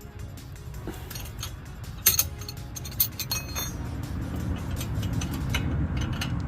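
Metal clinks and taps, as of hand tools and steel parts knocking together, with the sharpest two about two and three seconds in. A low rumble builds underneath in the second half.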